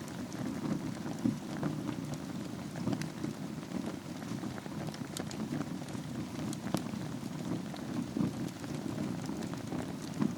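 Wood fire burning in a fireplace over a bed of embers: a steady low rumble of flames with scattered sharp crackles and pops.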